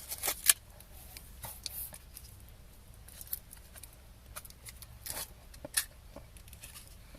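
Cellophane and foil sweet wrapper crinkling as a Quality Street caramel swirl is unwrapped: scattered crackles and clicks, sharpest in the first half second, with a few more around five to six seconds in.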